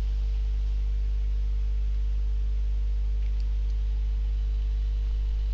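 Steady low electrical mains hum with a stack of overtones and a faint hiss beneath it, unchanging throughout.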